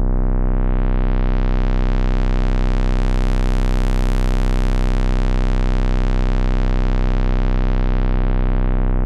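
Moog Model D analog synthesizer holding one deep, steady bass drone while its filter is swept. The tone opens from dull to very bright over the first few seconds and closes back down to dull by the end.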